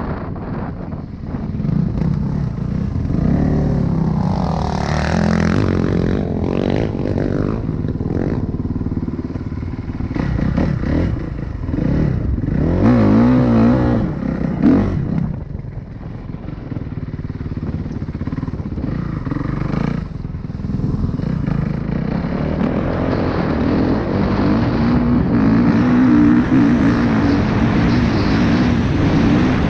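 Kawasaki KX450 dirt bike's four-stroke single-cylinder engine under hard riding, its pitch rising and falling over and over as the throttle is opened and shut and the gears change.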